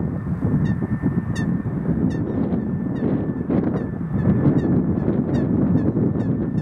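Low, steady rumble of an Airbus A320-family airliner's jet engines on final approach, with wind on the microphone. Over it a bird gives short, high, honking calls, repeated about two to three times a second.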